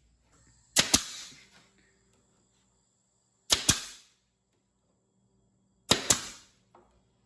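Nail gun firing nails into OSB board three times, a couple of seconds apart: each shot is a sharp double crack with a short hiss after it.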